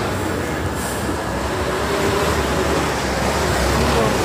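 Freightliner FLD's Cummins N14 diesel engine pulling a loaded flatbed trailer at low speed, a steady low rumble that grows slightly louder, with a faint whine above it.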